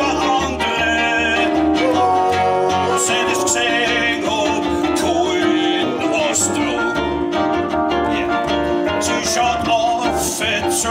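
Live Austropop band playing: electric keyboard and a plucked upright double bass, its low notes moving step by step, with a man singing into a microphone.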